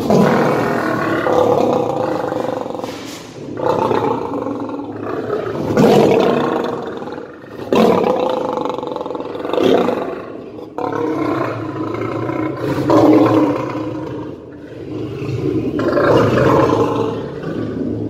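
Lion roaring over and over, a loud roar every few seconds with hardly a pause between them.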